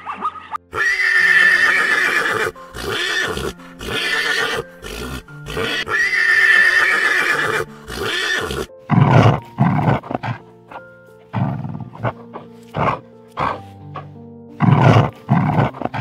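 Whinnying calls of an equid, horse or zebra: two long calls and several shorter ones. They are followed from about nine seconds in by a run of short, lower calls about half a second apart, all over background music.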